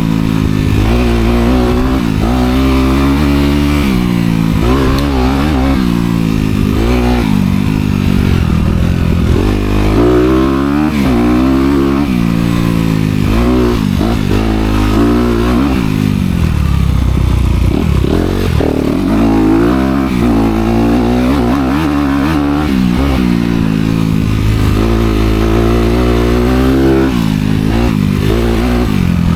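Honda CRF250R dirt bike's single-cylinder four-stroke engine, with its dual exhaust, revving hard under riding. Its pitch climbs and drops over and over with the throttle.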